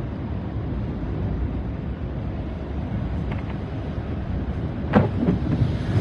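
Steady low road rumble inside a moving car, its tyres running on a wet road. A single sharp knock about five seconds in.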